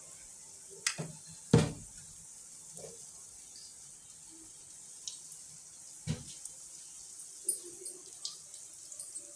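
Brinjal pakoras deep-frying in hot oil in a kadhai: a steady high sizzle, broken by a few knocks, the loudest about a second and a half in.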